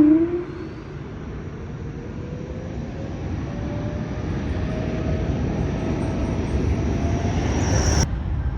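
Airbus A220-300 airliner's Pratt & Whitney PW1500G geared turbofan engines running with a low rumble and a faint whine that slowly rises in pitch, the sound building steadily louder. It cuts off abruptly near the end.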